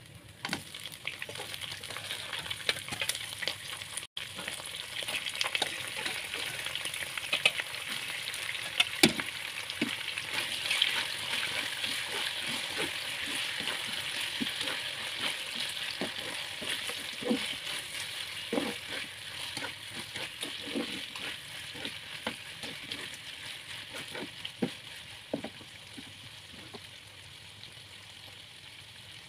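Raw chicken pieces sizzling in hot oil in a nonstick wok with fried spices, stirred with a spatula that knocks against the pan now and then. The sizzle picks up about a second in and fades gradually toward the end.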